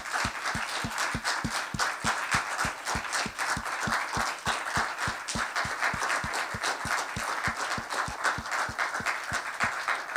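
Audience applauding, with close, even claps on top at about four a second from a person clapping with a handheld microphone in one hand, each clap carrying a deep thump through the mic.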